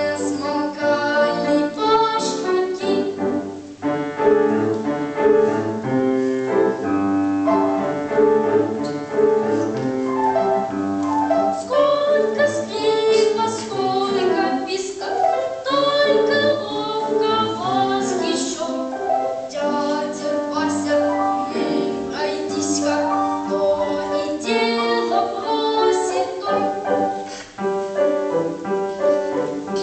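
A nine-year-old boy singing a Russian children's song solo, accompanied on piano.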